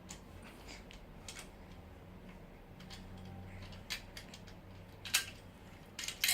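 Small clicks and taps of the metal and plastic parts of a folding laptop table being handled and adjusted, with a few sharper knocks near the end.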